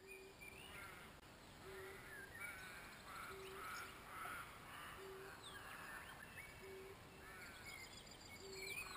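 Faint birdsong: assorted chirps and short whistled calls, with a short low note repeated about every one and a half seconds.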